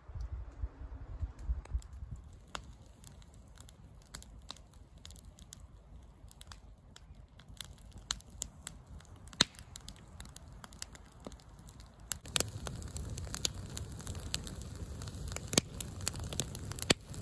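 Wood fire crackling, with irregular sharp pops over a low rumble; the pops come thicker and louder about twelve seconds in.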